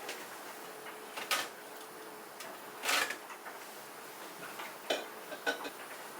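Fridge storage containers and trays being handled and set down: a few separate knocks and clacks, with a short rattling clatter about three seconds in.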